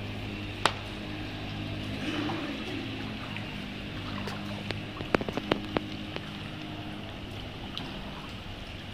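A steady low mechanical hum under a faint hiss of outdoor noise. There is one sharp click about a second in and a quick run of sharp clicks around five seconds in.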